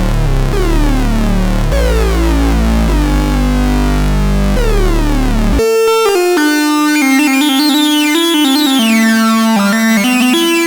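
Sequential Circuits Pro-One analog synthesizer playing a deep bass patch whose tone sweeps downward over and over. About five and a half seconds in it switches abruptly to a brighter monophonic lead melody in a higher register.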